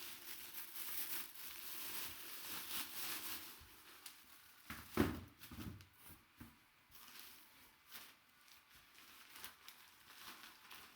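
Packaging crinkling and rustling as a memorabilia item is handled and unwrapped, with one louder rustle or knock about five seconds in.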